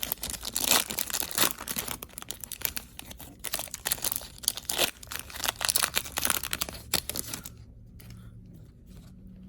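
Trading-card pack wrapper being torn open and crinkled in the hands, a dense irregular crackling that stops about two seconds before the end, leaving a faint low hum.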